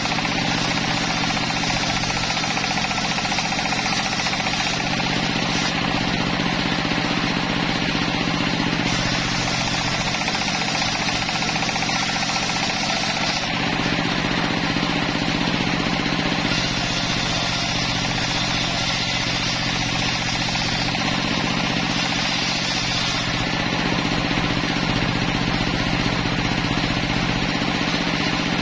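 Homemade bench circular saw running steadily and ripping wooden planks, its cutting sound brightening and easing off several times as boards pass through the blade.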